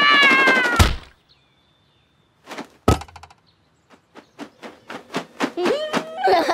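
Cartoon sound effects: a falling pitched tone cut off by a thud about a second in, and another thud near the middle. Then comes a quickening run of short flaps from strapped-on toy wings, with pitched, voice-like cries near the end.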